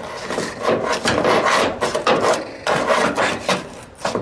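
Screwdriver scraping and prying hard, brittle expansion foam out of the rusted C-pillar cavity of a 1974 VW Super Beetle: a run of rough, irregular scraping strokes with short pauses.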